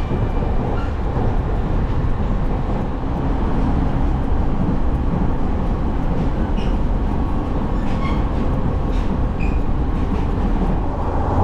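Passenger train running at speed, a steady rumble of wheels and running gear heard from inside the carriage, with a few faint brief high tones about two-thirds of the way in.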